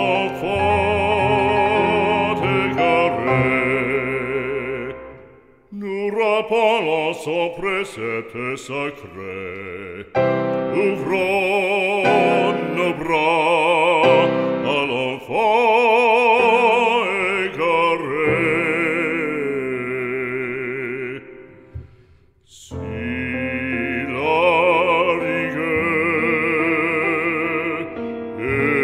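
Background music: operatic solo singing of a sacred song in French, the voice held in long notes with strong vibrato. The singing breaks off briefly about six seconds in and again about twenty-two seconds in.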